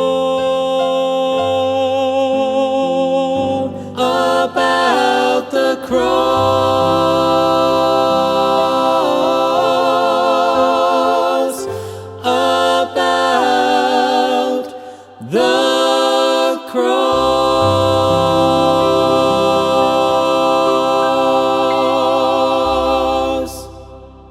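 Gospel song's closing bars: several voices singing in harmony, with long held notes and vibrato over sustained low notes, fading out near the end.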